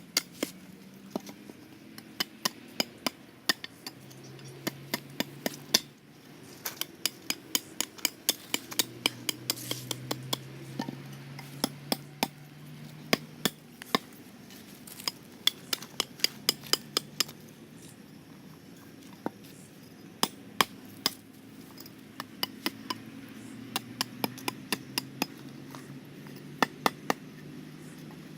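Repeated sharp, clinking taps and knocks on a hard object, coming in quick runs of several a second with short pauses between runs, typical of small hammer strikes.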